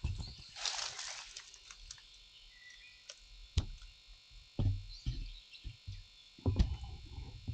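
Footsteps and rustling: a brushing rustle near the start, a single sharp crack about three and a half seconds in, and several low thuds later, the loudest near the end.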